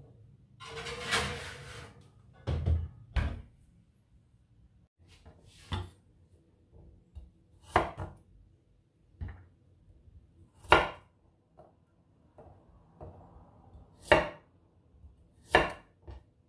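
A chef's knife slicing garlic cloves on a bamboo cutting board: single sharp knocks of the blade on the wood every second or two, the loudest about two thirds of the way through. In the first few seconds there is a longer clatter and two thumps.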